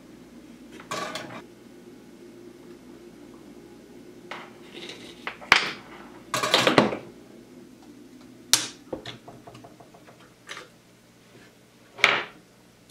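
Irregular short clicks, taps and scrapes of hands, component leads and a soldering iron working on the eyelet board inside a 1965 Fender Champ's metal chassis during a capacitor recap. The sharpest clicks come about halfway through and near the end, over a faint steady hum.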